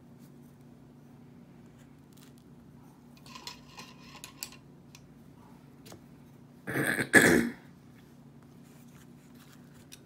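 A person clearing their throat, twice in quick succession, about seven seconds in, over a low steady hum; faint light rustling a few seconds earlier.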